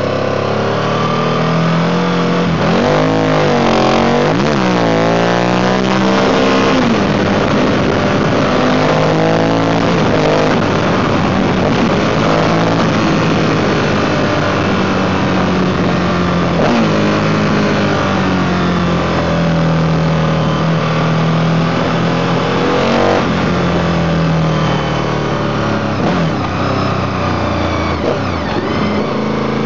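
Mondial motorcycle's engine under way, the revs rising and falling several times as the rider accelerates and changes gear, with wind noise rushing over the microphone.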